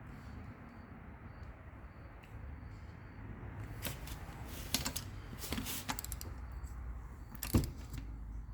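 Scattered sharp metal clicks and clinks of hand tools working on a wheel's lug bolts, with a quick run of them about four to six seconds in and one sharper click near the end, over a low steady rumble.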